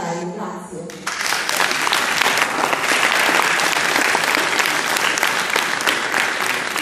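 Audience and performers applauding, many hands clapping; the applause breaks out suddenly about a second in as a speech ends, and holds steady and loud.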